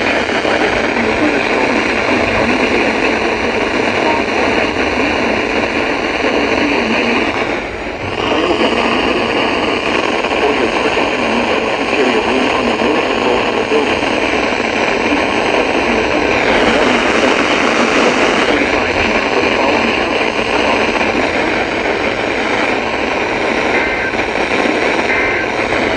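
Loud, steady hiss of radio static from a weather-radio receiver on a weak signal, dipping briefly about eight seconds in. Near the end, three short data bursts of an EAS alert header come faintly through the static, about a second apart.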